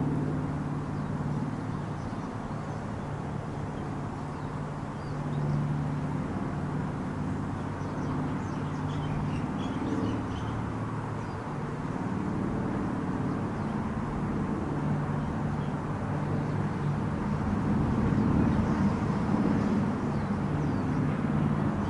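Boeing-Stearman Model 75 biplane's radial engine droning steadily overhead, its low hum wavering in pitch and growing louder near the end.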